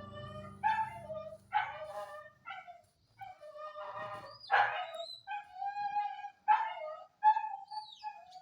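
Village dog whining and yipping in a string of short pitched calls, about a dozen in eight seconds, with one drawn-out whine a little past the middle.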